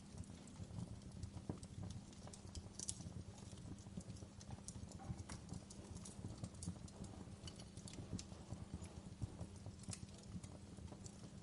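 Wood fire crackling: irregular small pops and snaps, several a second, over a steady low rumble.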